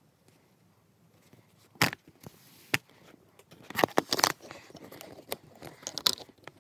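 Sped-up handling noise: scattered sharp clicks, rubs and rustles as hands working felt and a needle brush and bump against the phone's microphone. It starts about two seconds in and is loudest in a cluster about four seconds in.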